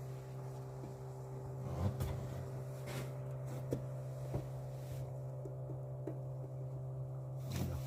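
A motor running steadily with a low, even hum, with a few light clicks and knocks over it.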